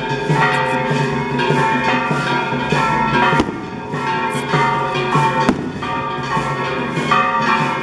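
Festival music: a ringing melody over drumbeats, with two sharp bangs about three and a half and five and a half seconds in.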